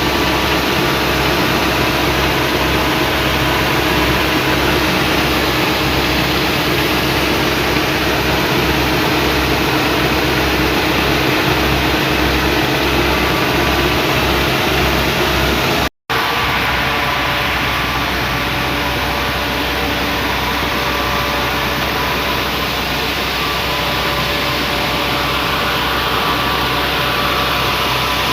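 Gleaner M2 combine running steadily while harvesting corn: a continuous engine and machinery drone with several steady tones, broken by a momentary dropout a little past halfway, after which it carries on much the same.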